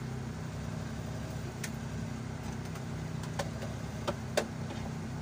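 Suzuki F6A three-cylinder engine of a Multicab idling steadily, warmed up to normal running temperature with its new thermostat open, heard from inside the cab. A few short light clicks come about three to four and a half seconds in.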